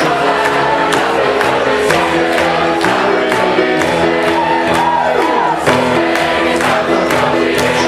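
A large crowd singing a gospel hymn together over a band, with a steady beat.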